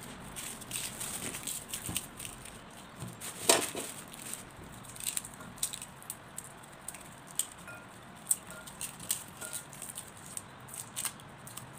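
Garlic bulbs being broken apart by hand into cloves: dry papery skins crackling and rustling, with irregular small clicks as cloves drop into a glass bowl. One sharper knock about three and a half seconds in.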